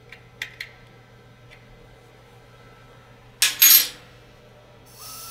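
A few small metallic clicks of the valve key on an acetylene B tank, then a loud short hiss of gas about three and a half seconds in as the cylinder valve is opened and the regulator and hose fill. A steadier, quieter hiss with a faint whistle starts near the end.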